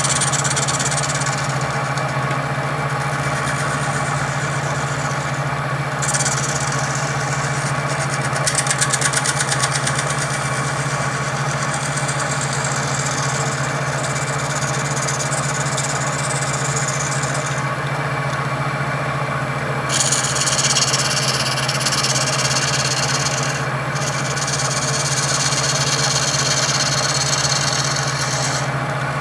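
Woodturning lathe running with a steady motor hum while a turning tool held against its spinning step pulley scrapes down the JB Weld repair, a hissing scrape that starts and stops in several passes. About nine seconds in the tool chatters briefly in a quick run of ticks.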